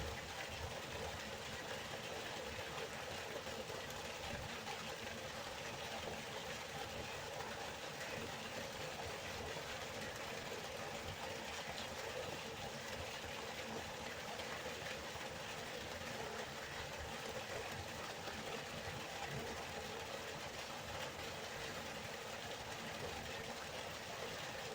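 Waterfall: water falling and rushing in a steady, unbroken wash of noise.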